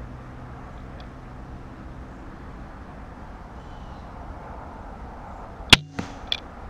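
A Barnett Raptor crossbow fires with one loud, sharp crack about five and a half seconds in, followed within about half a second by two fainter knocks.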